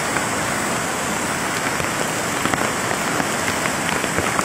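Steady rushing noise of a flooded, fast-flowing river, with rain falling and scattered faint ticks of drops.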